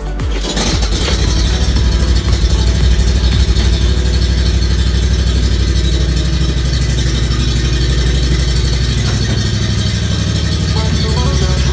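An engine running steadily at low speed, coming in about half a second in.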